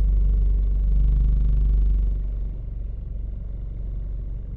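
A 2014 Scion xD makes a low, steady noise heard from inside the car. It is the noise that comes with the owner's steering-wheel vibration. It drops in level about two seconds in.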